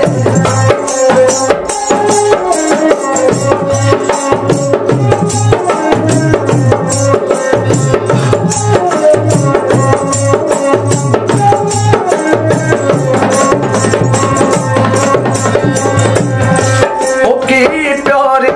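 Instrumental passage on a homemade bowed folk fiddle, its melody running steadily while small bells on the bow jingle in rhythm with the strokes, over a steady low beat.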